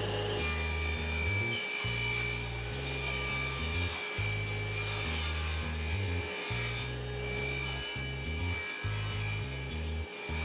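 Table saw running and cross-cutting wooden boards to length: a steady motor whine with the hiss of the blade through the wood. A background music bass line runs underneath.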